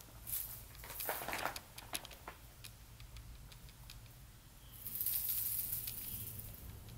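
Soft fabric rustling with scattered light clicks, and a louder stretch of hissy rustling about five seconds in.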